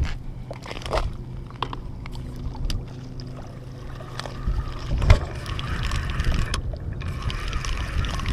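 Wind rumbling on the microphone, with scattered clicks and crunches of steps on oyster-shell ground and a louder knock about five seconds in; over the last few seconds a spinning reel is being cranked.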